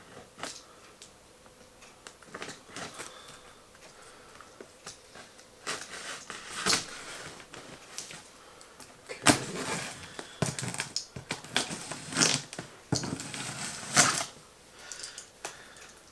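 Cardboard shipping box being opened by hand, its packing tape worked free. Irregular scraping, crackling and knocking of cardboard, with a run of louder strokes in the second half.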